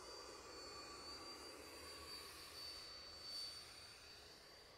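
Faint, distant whine of the FMS Rafale's 64 mm electric ducted fan, throttled back on landing approach. It is a steady high tone that swells briefly about three seconds in.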